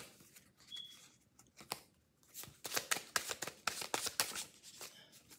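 A stack of small paper affirmation cards being shuffled by hand: soft quick flicks and riffles, a few at first and then a busy run from about two and a half to four and a half seconds in.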